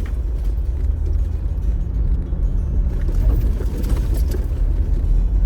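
Off-road vehicle driving over a rough, dipping dirt trail: a steady low rumble, with a few light knocks and rattles three to four seconds in.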